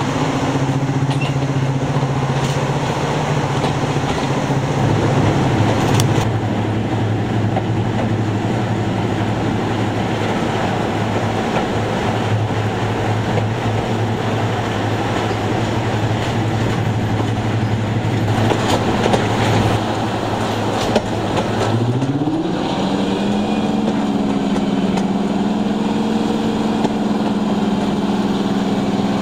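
Diesel locomotive engine running under power, heard from a carriage window of the train it is hauling, over rushing air and rail noise. About 22 seconds in the engine note rises and then holds steady at the higher pitch.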